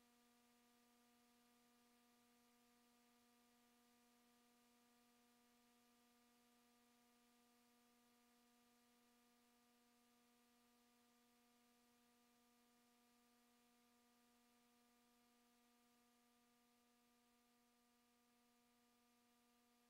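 Near silence: only a very faint steady hum.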